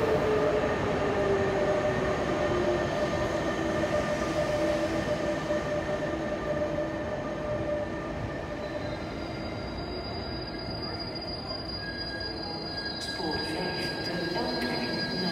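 Passenger train rolling slowly along an underground platform, squealing steadily in several held tones. One tone slides down in pitch over the first few seconds, and higher tones join about nine seconds in.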